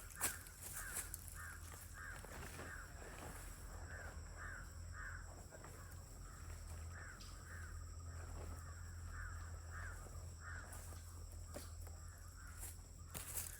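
A bird calling over and over in a long series of short calls, about two a second, with a few scattered knocks, the sharpest right at the start.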